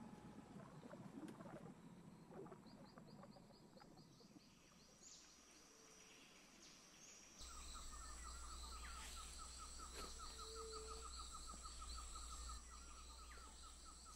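Faint outdoor ambience with birds calling and a fine, high pulsing series. About halfway the ambience changes to a low rumble under a fast, even run of repeated call notes, several a second.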